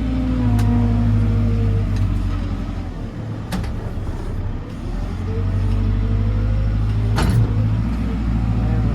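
JCB 4CX backhoe loader's diesel engine running steadily while the front bucket pushes stone, the engine note easing off for a couple of seconds in the middle. Three sharp knocks, the loudest near the end.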